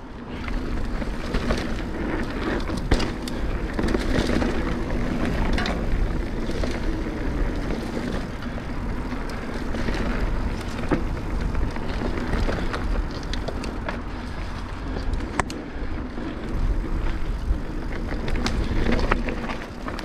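Mountain bike riding down a dirt trail: steady tyre and wind noise with a low rumble, and the bike rattling and knocking over bumps.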